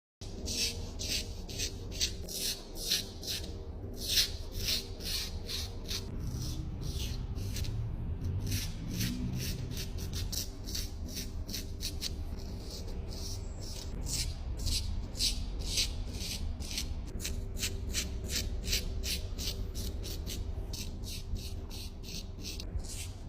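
Razor scraping over stubble in quick repeated shaving strokes, about two or three a second, over a faint steady hum.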